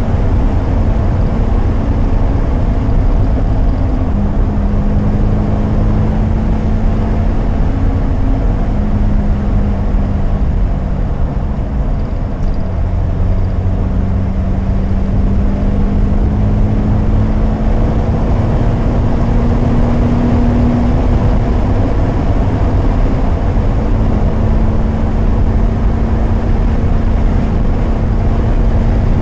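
3.9-litre V8 of a 1966 TVR Grantura, heard from inside the cabin while cruising, its exhaust note steady with gentle dips and climbs in pitch as the throttle and speed change.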